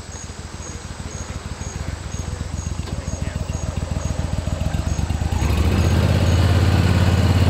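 Boat motors running at speed, the rapid firing pulse growing steadily louder and settling into a strong, steady low drone over the last two seconds.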